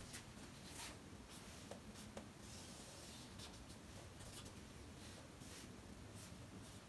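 Faint scratching of a pen drawing dimension lines on a drawing sheet: a string of short strokes, with one longer stroke about two and a half seconds in.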